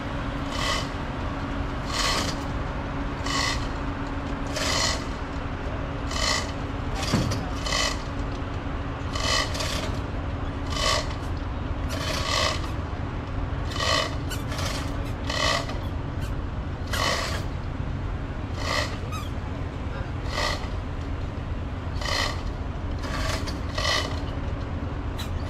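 Steady low hum of a docked ferry's engines running, with a short rasping scrape that repeats about every one and a half seconds.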